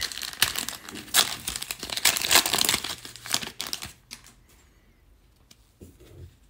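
Stack of glossy Panini Prizm trading cards being thumbed through by hand, crinkling and scraping for about four seconds, then only a few soft clicks.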